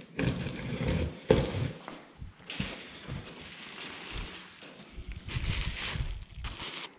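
Box-opening noises: packing tape on a cardboard box slit with a utility knife and the cardboard flaps pulled open, with a sharp snap about a second in. Near the end, plastic and bubble wrap rustle as a wrapped part is handled.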